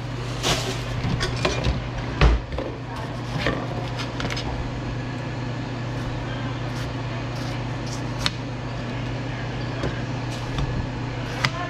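Kitchen-knife work on tomatoes: plastic bag rustling, then a knife slicing tomatoes on a plate, with scattered clicks and knocks, the loudest about two seconds in. A steady low hum runs underneath.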